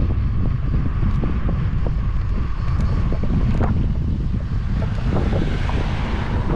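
Wind buffeting the microphone over a steady, loud low rumble, with scattered small clicks and knocks.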